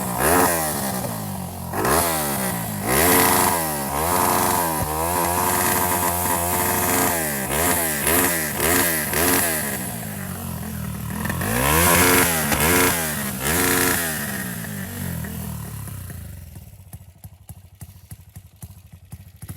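Modified pushrod single-cylinder motorcycle engine, built with a 66 mm piston and 62 mm stroke and running on ethanol, free-revved in repeated throttle blips with a deep exhaust note. Its pitch rises and falls about once a second, faster for a spell in the middle. It settles to a quieter, uneven idle for the last few seconds.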